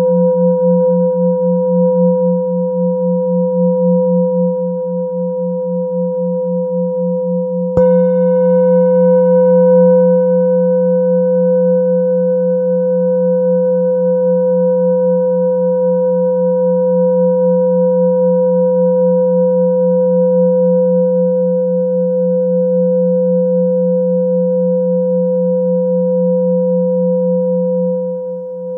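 Large metal singing bowl ringing with a pulsing low hum under clear, steady higher tones. It is struck again about eight seconds in, briefly adding bright upper tones that die away within a few seconds.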